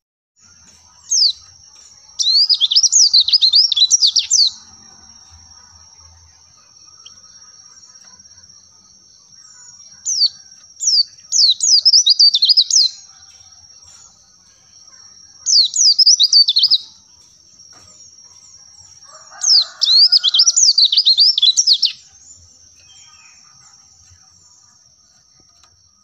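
White-eye (pleci, Zosterops) singing in four bursts of fast, high, up-and-down twittering, each a few seconds long, over a faint steady high-pitched whine.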